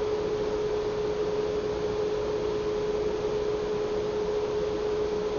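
A steady hum at one fixed pitch over a constant hiss, unchanging throughout, with no other sounds.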